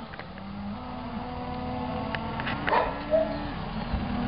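Herd of cattle lowing in drawn-out calls over a steady running vehicle engine, with a short sharp sound near three seconds in.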